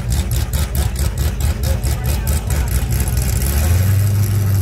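A drag car's engine idling with a choppy, evenly pulsing beat as the car creeps toward the starting line, then settling into a steady low drone near the end.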